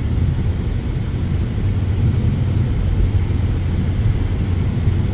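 Steady low rumble of a car on the move: road and engine noise with no break or change.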